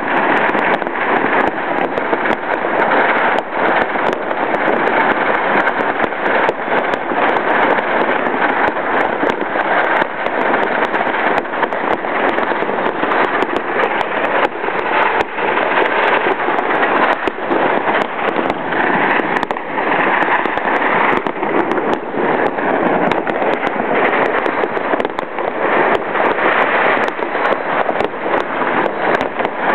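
A dense, unbroken barrage of fireworks and firecrackers going off all over a city at once: continuous crackling with many sharp bangs scattered throughout.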